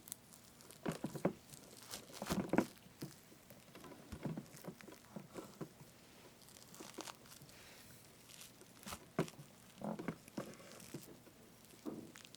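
Utensil cutting into and scooping whipped cream on a strawberry cake, held close to the microphone: soft, squishy taps and scrapes every second or two, with short pauses between.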